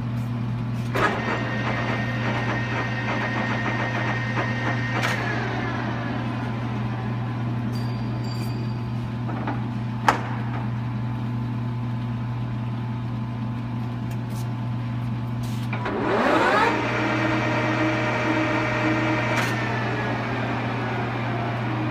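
Colchester engine lathe spindle running under power with a gear whine over a steady low hum. The whine starts about a second in and winds down in pitch about five seconds in, and a sharp click comes around ten seconds. The spindle then runs up again with a rising whine about sixteen seconds in and coasts down a couple of seconds before the end.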